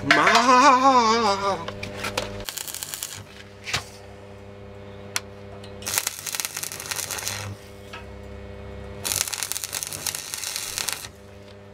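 Electric arc welding steel rod onto a steel car wheel rim: three short runs of crackling, sizzling arc, the first under a second, the next two about one and a half to two seconds each, over a steady low hum.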